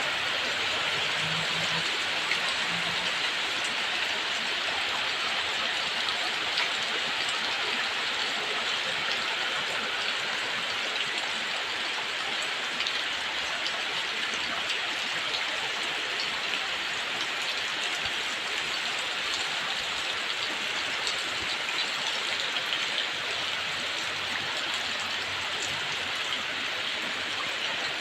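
Heavy tropical downpour: a steady, even rush of rain with scattered sharper drops.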